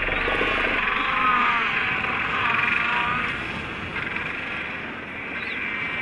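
Royal penguin colony: thousands of birds calling at once in a dense, unbroken chorus of overlapping cries, somewhat louder in the first half.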